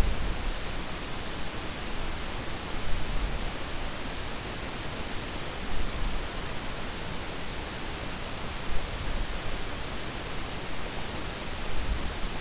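Steady hiss of background noise, with a few brief, faint low thumps.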